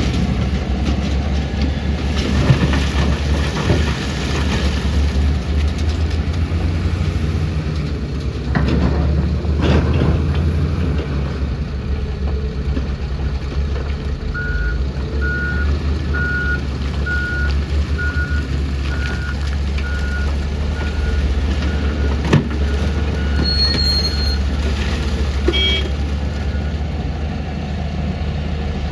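Heavy diesel machinery running steadily, from an excavator loading a tipper truck, with a few sharp clunks. About halfway through, a reversing alarm starts beeping at one pitch, about one and a half beeps a second, and keeps on for roughly ten seconds.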